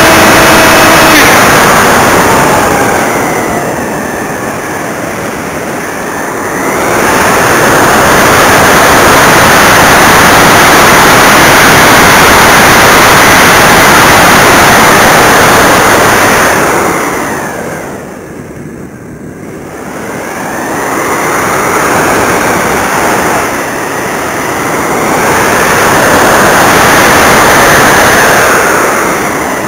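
Airflow rushing loudly over the onboard camera microphone of a flying RC glider, fading and swelling twice. A steady electric-motor whine cuts off about a second in.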